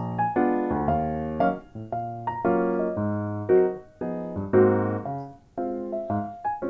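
Background music: a light piano or electric-piano tune of short notes in a steady rhythm.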